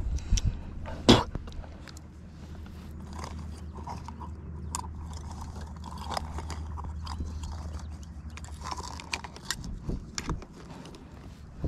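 Handling noises: a sharp knock about a second in, then scattered light clicks and rustles, over a steady low rumble.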